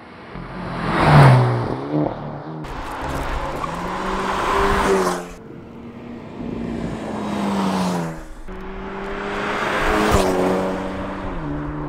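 2022 Hyundai Elantra N's 2.0-litre turbocharged four-cylinder engine and exhaust under hard acceleration, in several cut-together drive-bys. In each run the pitch climbs and then drops as it shifts up. The loudest pass comes about a second in, and there is another close pass near ten seconds.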